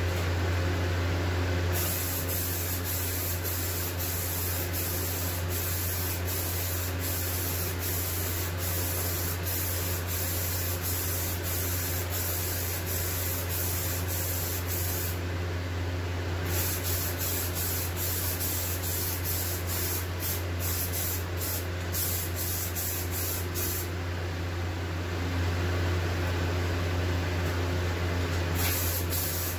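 Aerosol spray can of Rust-Oleum Peel Coat hissing as the final coat is sprayed, in repeated passes. It stops briefly about halfway through and again for a few seconds near the end. A steady low hum runs underneath.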